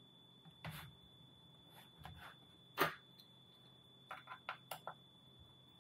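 Handling knocks of a Razer Blade Stealth 13 laptop's aluminium case being shut, turned over and set down on a desk, the sharpest knock about three seconds in, then a quick run of small clicks as a Torx T5 screwdriver is fitted to the bottom-case screws. A faint steady high whine runs underneath.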